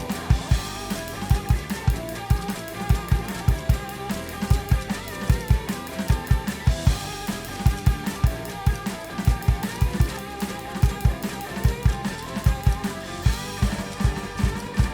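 Drum kit played fast and steady along to rock music: driving kick-drum strokes and snare hits under a constant cymbal wash, with a lead guitar line wavering above.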